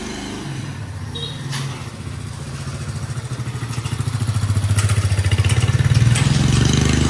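Small motorcycle towing a metal cargo cart, its engine running at low speed and getting louder as it comes up close, loudest about six seconds in.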